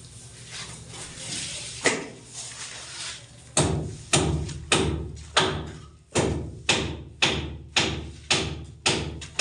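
Hammer blows, a few scattered knocks and then a steady run of strikes about two a second starting partway through.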